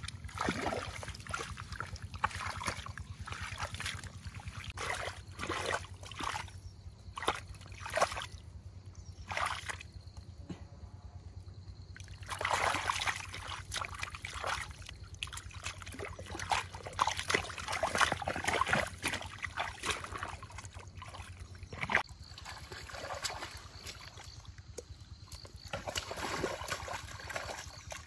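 Water sloshing and splashing in irregular bursts, as if being stirred or disturbed by hand, over a faint steady low hum.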